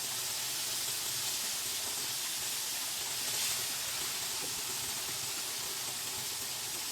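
Steady, even hiss, heaviest in the upper range, without breaks or distinct strokes.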